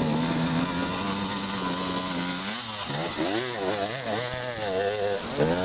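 Enduro motorcycle engine running at steady revs, then from about halfway revving up and down in quick bursts as the rider works the throttle climbing a steep dirt slope.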